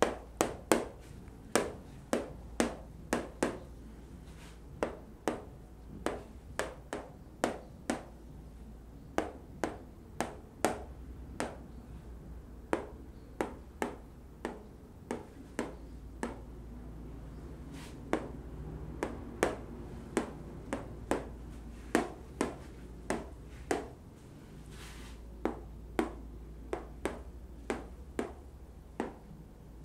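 A marker tapping against a whiteboard, one sharp tap after another at about one to two a second with a few short pauses, as it points out a text word by word.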